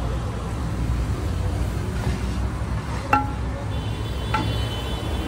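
Two sharp clinks of tableware, each ringing briefly, about three seconds in and again a second later, over a steady low rumble of traffic.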